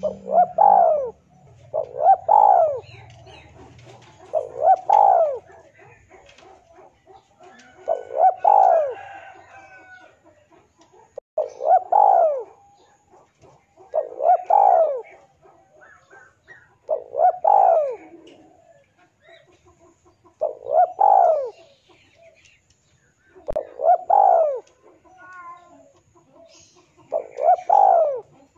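Male spotted dove cooing, its phrase of a few arching coos repeated about ten times, roughly every three seconds. This is the call a male gives to challenge a rival.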